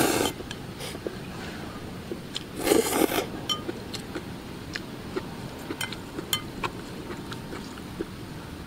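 A person slurping instant noodles twice, once right at the start and again about three seconds in. Chewing and short, light clicks of chopsticks against the bowl come in between.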